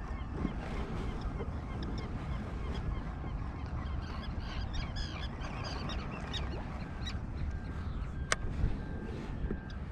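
Birds calling over open water, most densely around the middle, over a steady low rumble of wind on the microphone, with one sharp click about eight seconds in.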